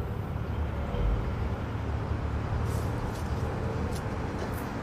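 Steady low rumble of outdoor background noise, with a few faint high ticks in the second half.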